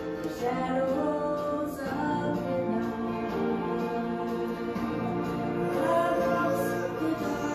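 Gospel song sung by a woman into a handheld microphone over a musical accompaniment, in slow held notes.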